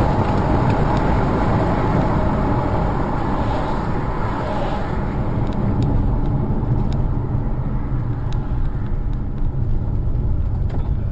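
Steady engine and road noise of a moving car, with a few faint clicks in the second half.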